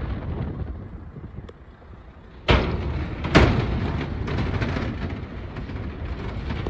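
A vehicle's wheels thump twice over a bridge joint, about a second apart. Then the tyres rumble steadily on the bridge deck, along with the wind rushing past.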